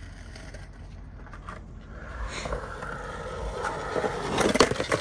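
Skateboard wheels rolling over concrete, getting louder as the board comes closer, with a few sharp clacks of the board near the end.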